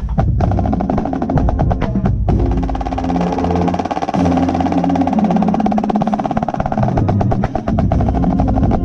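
Marching snare drums played close up: rapid strokes, then a sustained roll through the middle, then rapid strokes again near the end, with held low notes from the rest of the band underneath.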